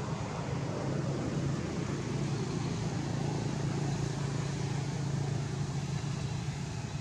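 A steady low motor hum over an even background noise, like a vehicle engine running nearby, swelling slightly in the middle.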